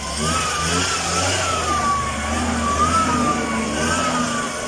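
A motor running with a steady low hum, over which a high whine wavers slowly up and down about once every second or so.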